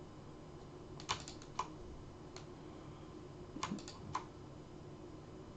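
Light computer keyboard key presses: a quick run of clicks about a second in, one more a little later, and another quick run near four seconds, over faint room tone.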